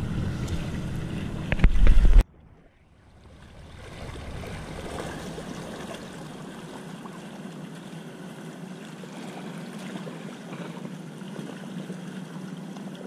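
Wind rumbling on the microphone with a loud knock just before two seconds in. Then a sudden cut to a steady, softer hiss of water with a low hum under it.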